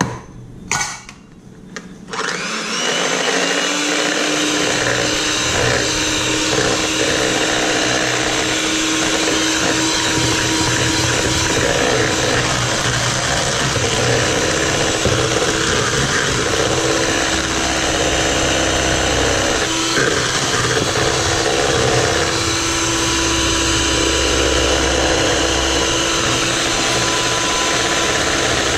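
A couple of knocks, then an electric hand mixer switches on about two seconds in, speeds up and runs steadily, its beaters whirring through an egg batter as milk and cornstarch are beaten in.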